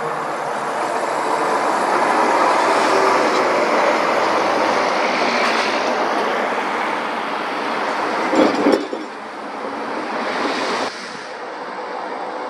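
Heavy lorries passing on a main road: a steady rush of tyre and engine noise that swells over the first few seconds and then eases. A brief loud burst comes about eight seconds in, and the level drops suddenly near the end.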